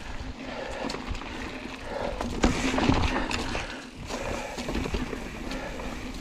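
Mountain bike riding along a dirt cross-country trail: a steady rumble of tyre and riding noise with frequent small knocks and rattles from the bike.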